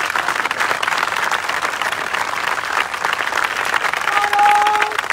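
A large crowd of young men clapping hard together: dense, continuous applause. Near the end a single held tone sounds over the clapping for about a second.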